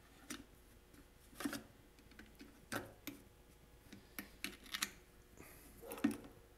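A hooked piece of wire tapping and scraping inside the plastic fuel tank of an Echo SRM-230 string trimmer as it is fished around for the fuel filter: faint clicks at irregular intervals.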